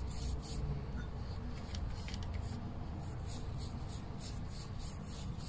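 Paintbrush strokes on paper: soft, scratchy brushing now and then as paint is spread across the sheet, over a steady low hum.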